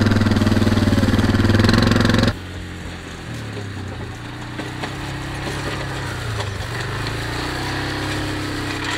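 ATV engine running while towing a box blade across grass. It is loud at first, then cuts off abruptly about two seconds in to a quieter stretch where the engine's pitch rises and falls with the throttle.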